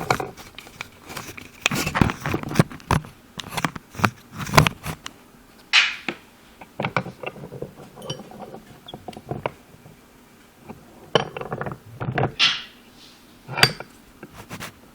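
Irregular clinks, knocks and scrapes of tools and metal parts being handled, with no steady rhythm.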